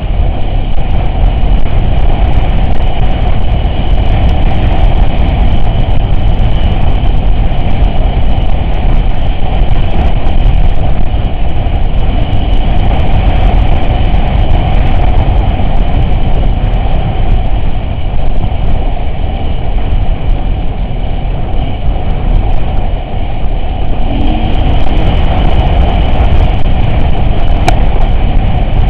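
Off-road vehicle driving, a loud steady engine and rolling rumble with no letting up.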